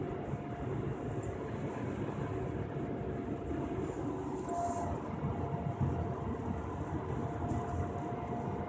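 Inside the cabin of a moving 2001 Ford Explorer: steady engine and road rumble, with a faint steady whistle-like tone that grows louder for a moment about halfway through. The owner hears this whistling from the rear and does not know its cause.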